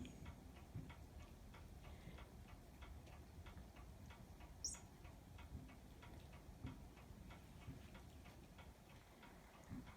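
Near silence with a faint, even ticking, a few ticks a second, and one brief high squeak about halfway through.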